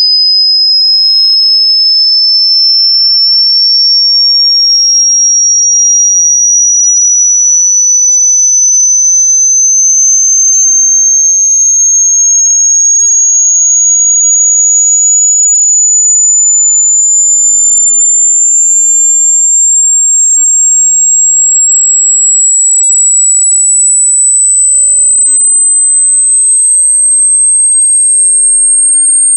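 Loud synthesized pure tone, very high-pitched, gliding slowly and evenly upward in pitch.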